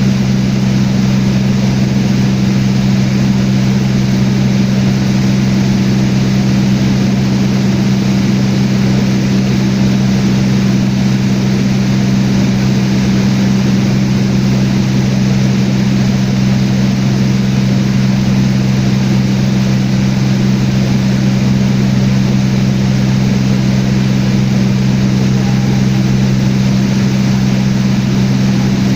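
Small propeller airplane's engine and propeller droning steadily in flight: two strong, even low hums over a noisy rush, with no change in pitch or level.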